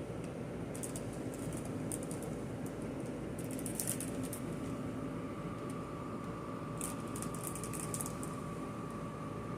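Cough-drop packaging crinkling in short bursts, four or five times, as it is pawed and bitten at, over a steady hum.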